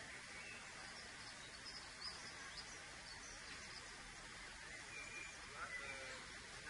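Faint ambient background: a steady hiss with scattered faint, short, high chirps, a few more of them near the end.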